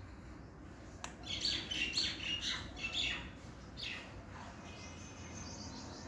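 Young Alexandrine parakeet giving a quick run of short, high chirping calls for about two seconds, then one more call near four seconds in. A sharp click comes just before the calls.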